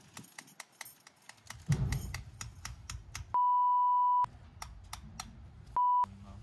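Censor bleep: a steady high beep held for almost a second about halfway through, then a second short beep near the end, over light, quick taps of small hammers driving ground pins through artificial turf.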